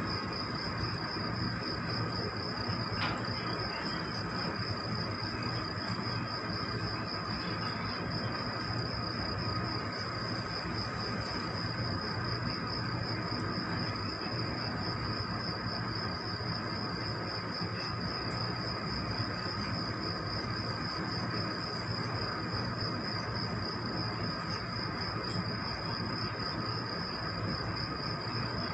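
A continuous high-pitched trill with a fine, even pulsing, over a low steady hum.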